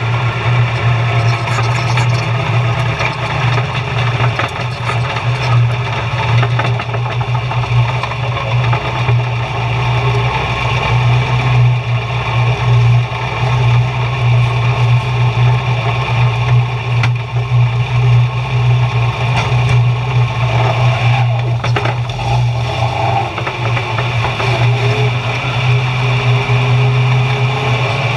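Oval-track stock car's engine heard from inside the cockpit, running loud and steady with little change in pitch.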